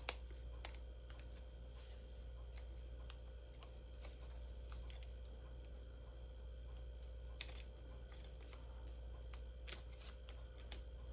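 Paper handling: a few sharp light ticks and faint rustles as the backing paper of glue dots is peeled off a cut cardstock strand, over a steady low hum.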